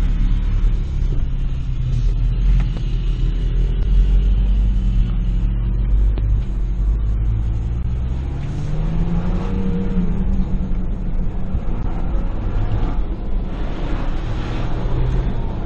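2021 Ford Bronco driving on a dirt trail, heard from inside the cabin: steady engine and tyre rumble, with the engine note rising and falling back once about halfway through.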